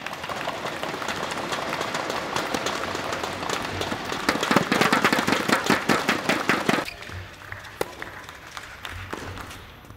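Spectators clapping in an indoor tennis arena after a point. The applause grows to its loudest about five seconds in, then dies away quickly about seven seconds in.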